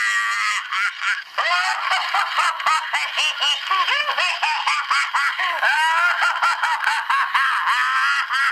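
1970 Remco laughing clown doll playing its recorded laugh: a high-pitched, squawky cackle of rapid repeated "ha-ha" bursts, with a brief break about a second in before it starts again.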